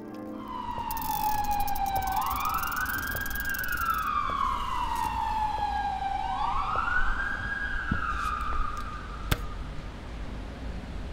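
An emergency vehicle siren wailing, its pitch rising and falling slowly twice before fading away, over a steady low traffic rumble. A single sharp click comes about nine seconds in.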